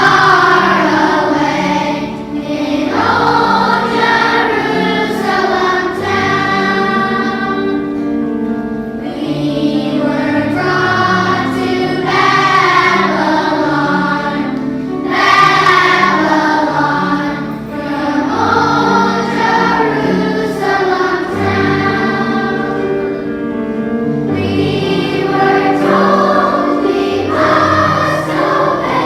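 Children's choir singing a song in unison, with steady instrumental accompaniment underneath.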